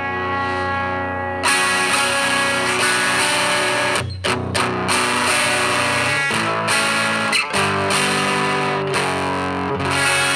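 Single-coil electric guitar played through the home-built McGrath Mini amplifier, both channels combined with the gain turned up for a distorted tone. Chords ring out, with short breaks about four seconds in and again near seven and a half seconds.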